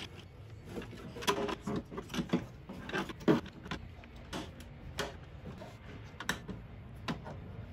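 Irregular clicks and knocks of hands fitting an inline fuse holder onto threaded studs in an engine bay, plastic and metal parts tapping together. The clicks cluster in the first half, then come singly a few times.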